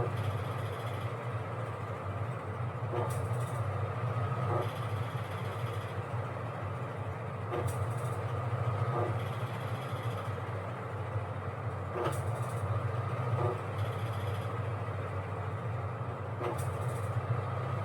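Washing machine running: a steady low motor hum, with a short knock and a fainter follow-up sound repeating about every four and a half seconds as the cycle turns.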